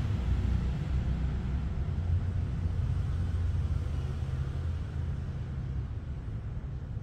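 A low, steady motor rumble, like a vehicle engine running, that slowly fades.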